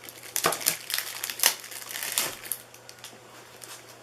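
Plastic packaging film crinkling as it is handled, with a run of sharp crinkles over the first two and a half seconds and quieter rustling after.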